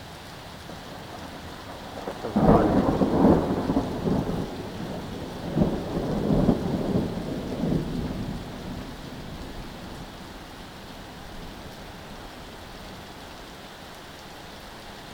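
Thunder during a rainstorm: a sudden crack about two seconds in, then rumbling that swells again and dies away after several seconds, over steady rain.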